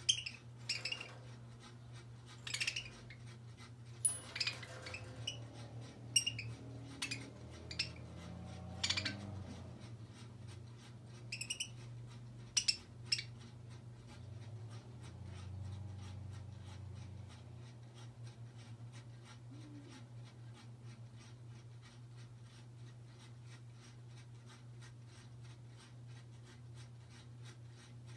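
Small metal bells on a hanging budgie toy tinkling and clinking now and then, with light clicks of beaks and claws on the toy, mostly in the first half; a steady low hum runs underneath.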